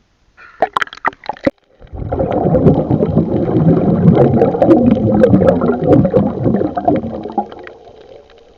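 A few sharp clicks, then loud underwater gurgling of air bubbles for about five seconds, fading out near the end.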